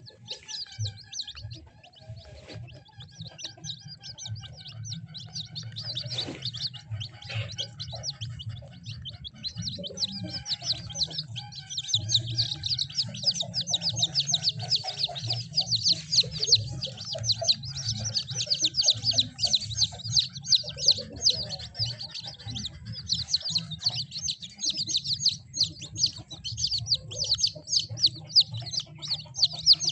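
Many ayam kampung (Indonesian native) chicks peeping without pause, a dense chorus of short, high, falling peeps that grows busier and louder after about twelve seconds.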